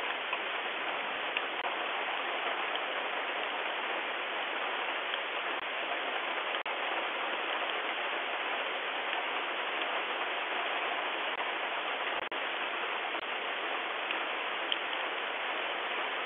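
Heavy rain falling steadily, an even hiss with scattered sharper drips striking close by, heard through a doorbell camera's narrow-band microphone. The sound cuts out for an instant twice.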